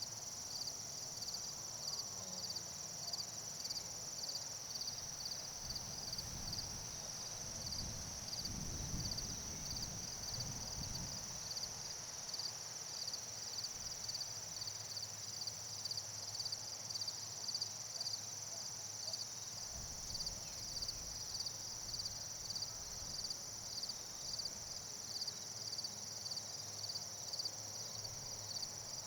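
Night insects, crickets among them: a steady high-pitched trill with a pulsing chirp repeating about twice a second. A soft low rumble comes and goes from about six to eleven seconds in.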